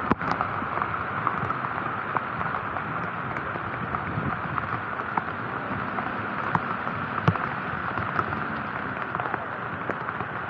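Steady rain and wet-road hiss heard from a moving bike, with scattered sharp ticks of raindrops striking the camera.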